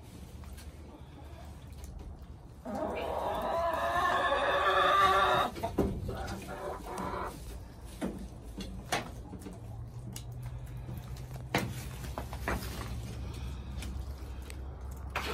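Chickens clucking, with one loud, drawn-out call lasting about three seconds a few seconds in, then a few sharp knocks.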